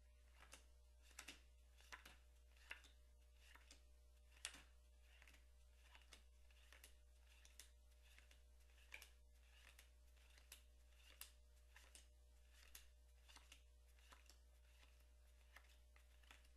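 Faint, irregular clicks of playing cards being pushed and slid off a held pack one at a time, roughly two a second, over a low steady hum.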